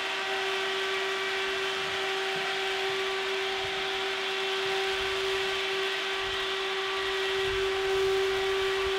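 Smoke-ejector ventilation fan running steadily: an even, steady whine over a rush of blown air.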